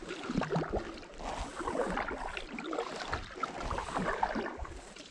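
Double-bladed kayak paddle stroking through calm water, the blades dipping in and swishing along the hull, with no steady rhythm.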